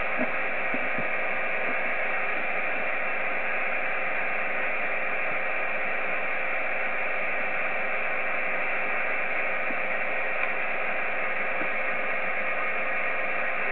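Steady static hiss from an Icom IC-7300 transceiver's receiver on the 10-metre band in upper sideband, with a faint steady whistle in it. It is an open channel with no station talking.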